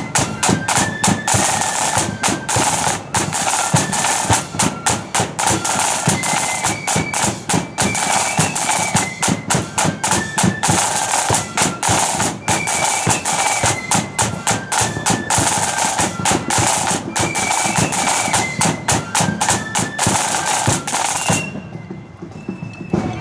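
Marching flute band playing a tune: flutes carry a stepping melody over loud, rapid side-drum strokes and rolls and bass drum beats. The music cuts off suddenly near the end.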